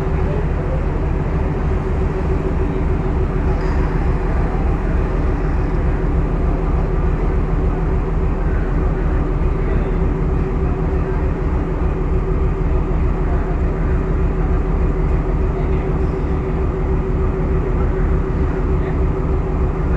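Class M9 diesel-electric locomotive's engine idling while stationary, a steady low running note with a fast even pulse.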